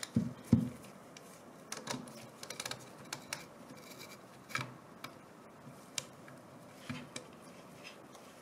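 Assembly handling sounds on a small hand-built air compressor: two sharp knocks in the first half second, then scattered light clicks and scrapes as a screwdriver works at the cylinder head.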